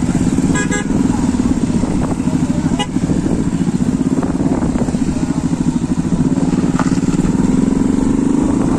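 Motorcycle engine running steadily with a fast pulsing beat as the bike rides along. A vehicle horn toots briefly about half a second in.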